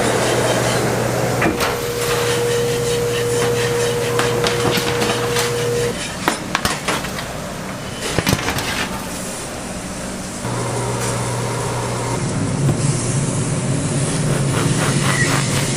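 Steady mechanical hum with a held tone, broken about six seconds in by a stretch of scattered sharp knocks and clicks, then steady hum again.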